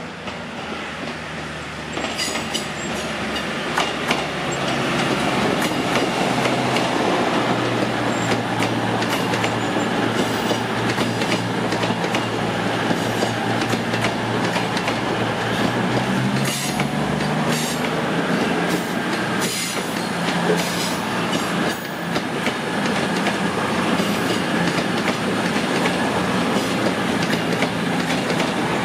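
Two coupled Class 221 Super Voyager diesel-electric units departing under power and passing close by. Their underfloor diesel engines run steadily, and the wheels click repeatedly over the pointwork. The sound swells over the first few seconds as the train draws near.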